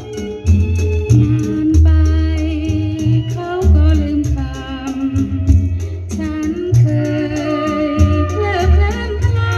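Music played back from a cassette on a Pioneer CT-W606DR double cassette deck through loudspeakers: a steady beat with heavy bass and a sustained melody.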